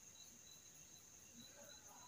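Near silence: room tone with a faint, high, pulsing chirr.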